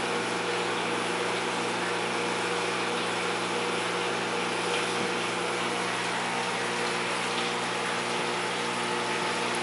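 Aquarium wet/dry filter system running at high flow: a steady rush of moving water with a low, even pump hum underneath.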